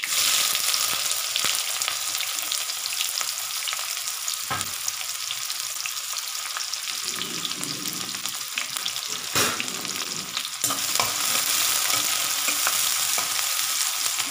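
Chopped onions sizzling in hot oil tempered with mustard seeds, cumin and curry leaves, the sizzle starting sharply as they go into the pan. They are stirred, with a few sharp knocks of the spoon against the pan.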